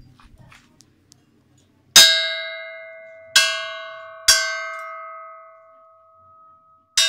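Hand-forged steel dundun bell, made from scrap metal, struck four times: once about two seconds in, twice more in quick succession, and once near the end. Each stroke gives a bright clang that settles into a clear ringing tone and fades slowly.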